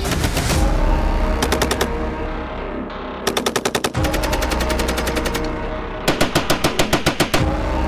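Turret-mounted machine gun firing in about four bursts, the longest near the end, over background music.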